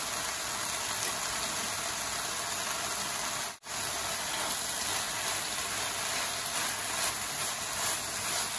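Eggplant, sausage slices and shiso leaves sizzling in a hot frying pan as they are stir-fried with chopsticks: a steady hiss that breaks off for an instant about three and a half seconds in.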